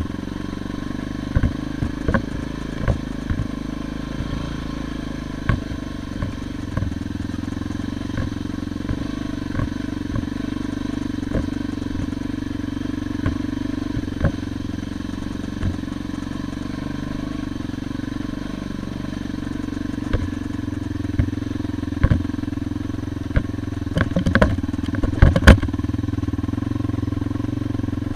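Motorcycle engine running steadily at low, even revs while riding a rutted dirt track, with scattered knocks and clatter from the ride over stones and ruts, loudest in a cluster near the end.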